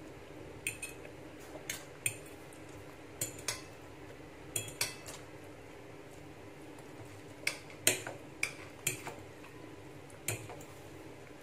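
Metal fork and spoon clinking and scraping against a plate while twirling spaghetti: about a dozen short, sharp clinks in irregular pairs and clusters.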